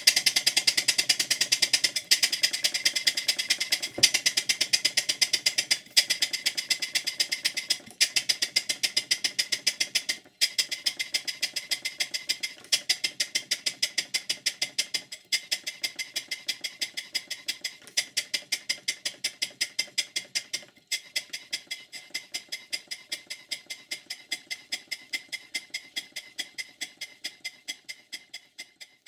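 Stuart Models 5A single-cylinder model steam engine running steadily on compressed air, its exhaust giving a quick, even rhythm of hissing beats, with a few brief breaks.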